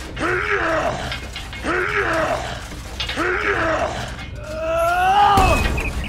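A voice grunting with strain three times, then letting out one longer groan that rises and falls in pitch near the end: the sound of someone heaving hard against a heavy load.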